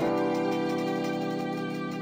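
Background music: a soft, sustained instrumental chord that begins right at the start and is held steadily.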